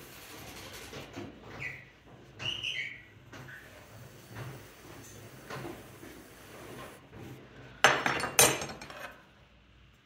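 Metal loop trimming tool scraping leather-hard terracotta clay on a spinning potter's wheel, over the wheel's low hum, with a couple of short squeaks about two seconds in. Near the end come two sharp metallic clinks about half a second apart, the loudest sounds.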